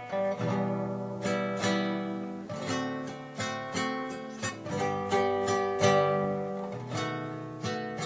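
Instrumental background music of a plucked acoustic guitar, a steady run of picked notes that ring and fade.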